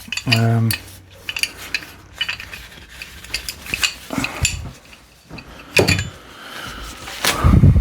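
Old metal hand tools clinking and clattering against each other as they are rummaged through in a box, irregular knocks and clinks, with a louder low knock near the end.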